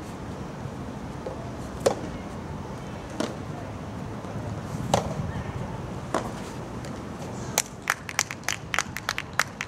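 Soft tennis rally: a rubber ball struck back and forth with rackets, four hits about a second and a half apart, the near player's strikes louder than the far player's. Near the end comes a quick, irregular run of sharp claps.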